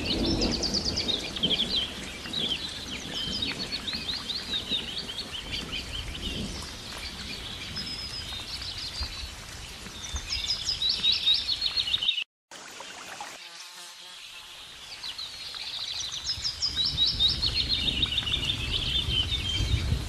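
Small songbirds singing in quick repeated chirps and trills, with a brief total dropout a little past the middle and a few seconds of fewer calls after it. A low rumble sits underneath near the start and end.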